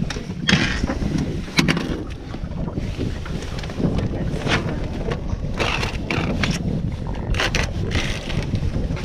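Steady low rumble on a small fishing boat, with scattered knocks and clicks of handling.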